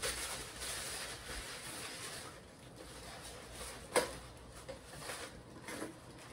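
Tissue paper rustling and crinkling as a gift is unwrapped by hand, with a sharp click about four seconds in.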